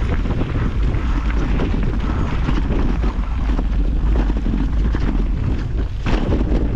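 Wind buffeting the camera microphone over the rumble and clatter of a mountain bike riding a rough trail, with many small knocks and one sharper knock about six seconds in.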